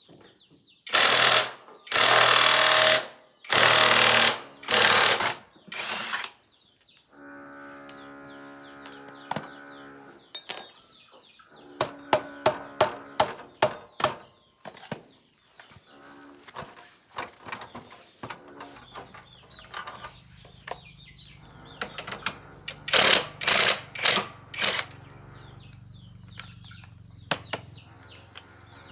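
Several loud bursts of about a second each from a pneumatic air tool, with short clicks and knocks of metal parts being handled in between, and another cluster of bursts near the end.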